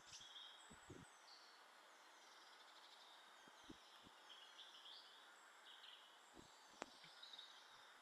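Faint, high, short chirps and calls of small garden birds, repeated many times, with a few soft knocks and one sharp click about seven seconds in.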